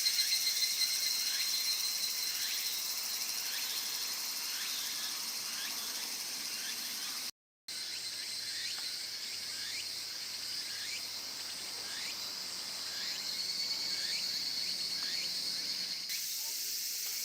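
Outdoor insect chorus shrilling steadily and high, with short rising chirps repeating every half second or so. The sound drops out briefly about halfway through.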